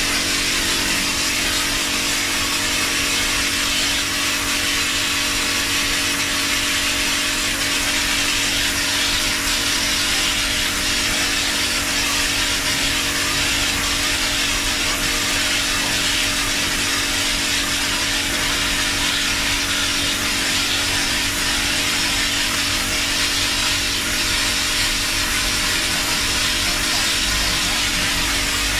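Medklinn O3 Jetspray high-pressure cleaner running: a steady motor hum under the continuous hiss of its water jet hitting a tiled wall.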